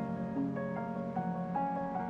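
Instrumental background music: single melody notes changing every fraction of a second over a held low chord.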